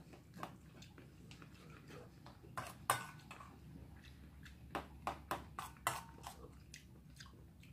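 Metal spoon clinking and scraping against a stainless steel bowl while eating, in irregular short clicks with chewing between them. The loudest clink, with a brief ring, comes about three seconds in, and a quick run of clinks comes around five to six seconds.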